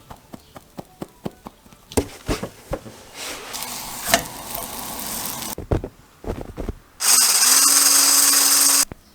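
Light kitchen clatter of knocks and clicks, then near the end a small electric kitchen appliance runs for about two seconds, its motor tone rising briefly and then holding steady before it cuts off.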